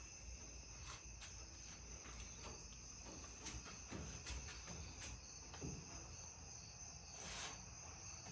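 Faint crickets chirping steadily, with a few soft clicks and taps.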